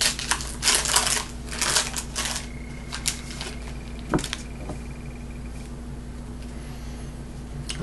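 Foil trading-card pack wrapper crinkling and tearing as it is pulled open, in quick bursts over the first two or three seconds, followed by a few light clicks as the stack of cards is handled.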